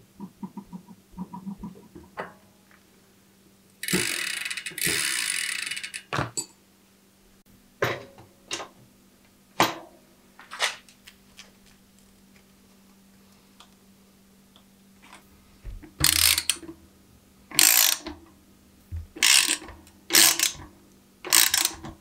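Mountain bike rear wheel being fitted into the frame: quick freehub ticks and small clicks, a longer buzz about four seconds in, and sharp metallic knocks. Near the end come five or six short ratcheting strokes as the brake caliper bolts are tightened.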